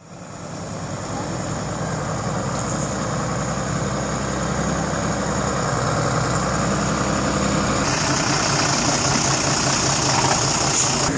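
A heavy diesel engine idling steadily, fading in at the start. A high hiss grows louder about eight seconds in.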